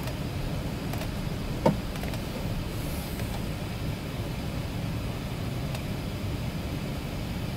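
Steady low rumble and hiss of the Airbus A380 cabin while the airliner taxis, made up of engine and air-conditioning noise. A single short knock sounds once, a little under two seconds in.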